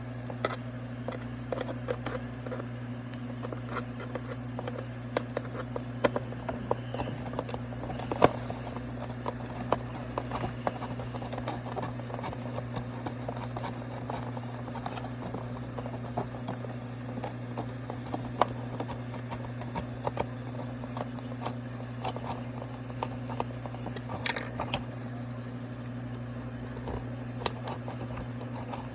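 Steady low electric hum of an animated Snoring Santa figure's motor running, with scattered small clicks and knocks of its plastic parts being handled and fitted back together.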